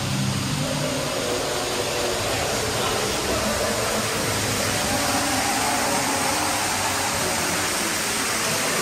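Steady rushing noise of water flowing through a boat ride's channel, with faint low tones underneath.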